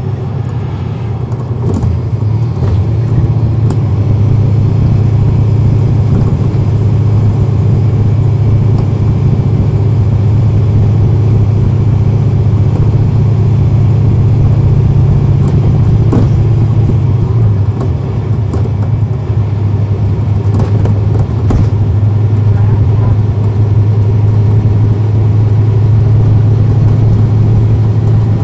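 Cummins ISL9 diesel engine of a 2010 NABI 40-foot transit bus running steadily under way, heard from on board. It grows louder about two seconds in, and its note drops slightly a little past halfway.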